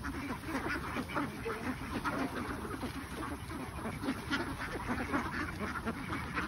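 A large flock of domestic ducks quacking, a dense, continuous chorus of many overlapping calls.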